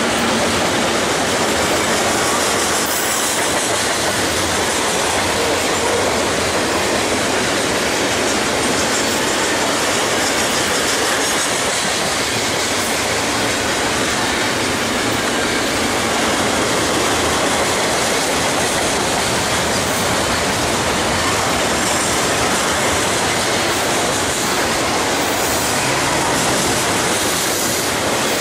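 Double-stack container cars of a BNSF freight train rolling past at close range, with a steady clatter of steel wheels on the rails.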